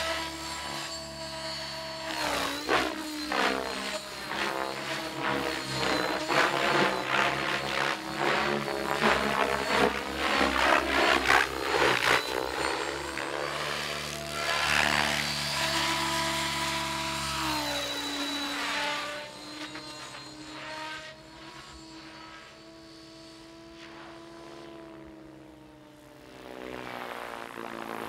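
Compass Chronos 700-size RC helicopter flying 3D manoeuvres, its rotor and motor tone sweeping up and down in pitch as it swings through the air. About two-thirds of the way through the sound drops and turns quieter and steadier.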